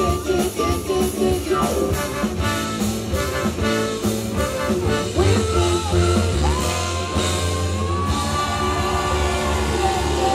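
A live band with female vocals, electric guitar, bass guitar, drums, trumpets and trombone playing an upbeat song. Rhythmic chord stabs over a steady bass in the first half give way to long held notes from about six seconds in.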